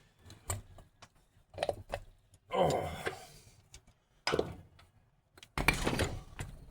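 Metal clunks, clicks and a rattling clatter as a starter motor is pulled apart by hand. The clatter is busiest near the end.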